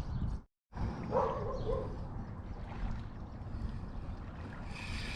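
Steady water and wind noise around a kayak on open lake water, with the sound cutting out completely for a moment about half a second in.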